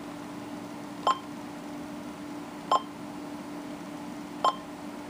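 Icom IC-910H transceiver giving short single beeps, three of them, spaced a second or two apart, over a steady low hum and hiss.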